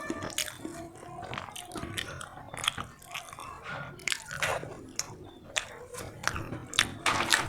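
A person biting and chewing food close to the microphone, with irregular sharp crunches.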